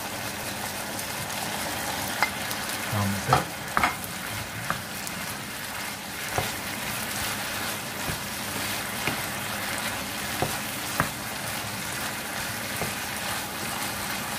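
Food sizzling steadily in hot oil in a pan while a spoon or spatula stirs it, with a few sharp taps of the utensil against the pan.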